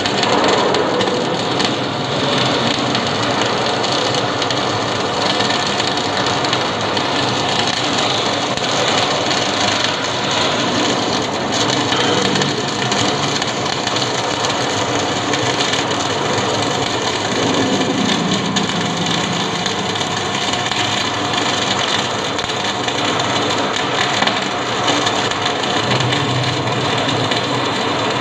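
Electric arc welding: a steady, unbroken hiss from the arc running continuously through a long weld.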